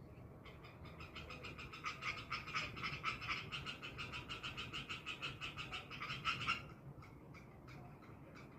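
A rapid, even train of pulsed animal calls, about eight pulses a second, that stops abruptly about two-thirds of the way through, followed by a few scattered single clicks.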